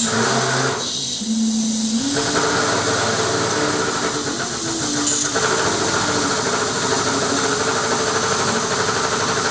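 Electric overhead crane hoists running under load. The motor hum steps between a few steady pitches as they start and stop, with a hiss over it from about two seconds in.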